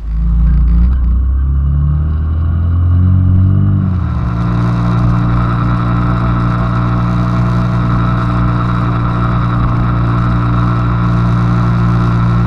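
Small Honda 90 cc single-cylinder motorcycle engine pulling away and accelerating through the gears, its pitch climbing and stepping at each shift for about four seconds. It then settles into a steady cruise with a steady rushing noise over the engine.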